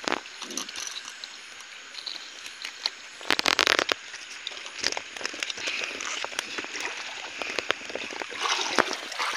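Shallow stream water trickling and sloshing, overlaid with clicks and rubbing as hands and cloth brush the phone's microphone. A loud burst of scraping noise lasts about half a second, a little over three seconds in.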